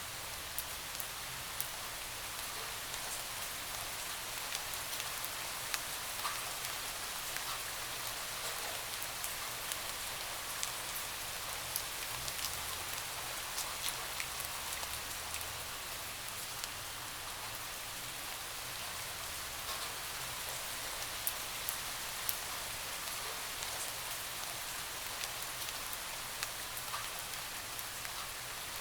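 Steady rain with many scattered sharp drop ticks striking a window.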